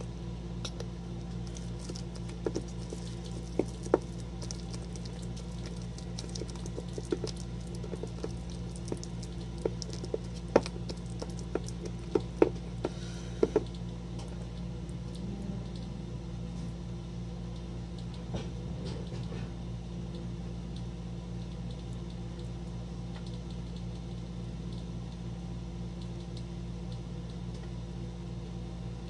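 Scattered light clicks and taps of a brush against a bowl as clay mask powder is stirred into apple cider vinegar, mostly in the first half, over a steady low hum.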